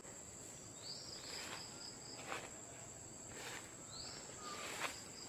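Steady high-pitched insect drone with a few short rising chirps over it, and faint rustling steps through leafy undergrowth.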